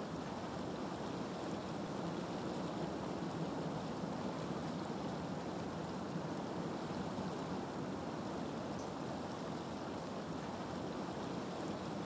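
Steady rush of flowing river water, even and unchanging, with a few faint high chirps.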